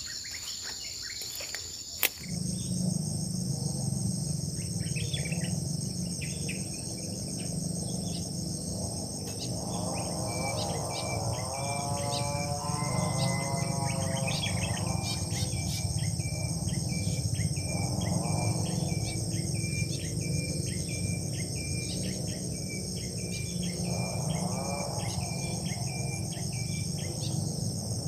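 Steady chorus of crickets and other insects, with a single sharp click about two seconds in. From the middle on, a faint repeating chirp and a few faint drawn-out calls sound in the background.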